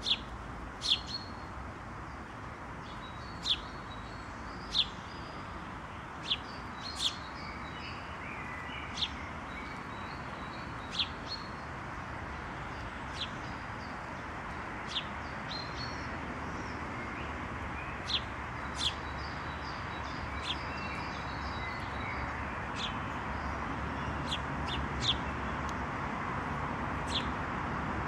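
Small songbirds chirping: short, sharp single chirps at irregular intervals, a second or two apart, over a steady background hiss.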